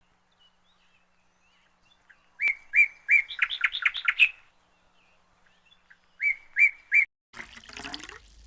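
A bird chirping in short, clipped repeated notes: a run starting about two seconds in that speeds into a quick trill, then three more notes about six seconds in. A brief burst of noise follows near the end.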